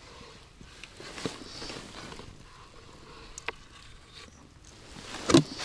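Faint rustling and a few light clicks of hands working a pike tip-up rig while hooking a small live perch as bait, with a louder rustle and knock near the end.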